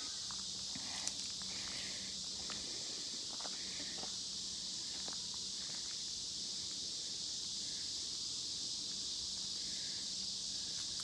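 Steady high-pitched drone of an outdoor insect chorus, with a few faint soft taps and rustles scattered through it.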